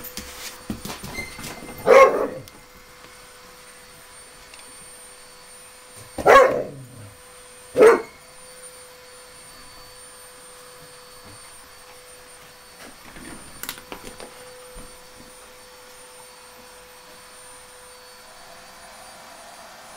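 A dog barks three times: once about two seconds in, then twice close together around six and eight seconds in. A faint steady high tone runs underneath, with some soft scuffling.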